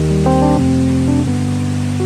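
Background music: calm sustained chords with a melody of held notes, changing every half second or so.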